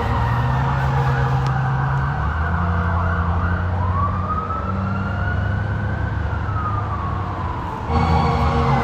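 Police car siren wailing, its pitch sliding slowly up and back down, over a steady low rumble. The sound jumps louder abruptly near the end.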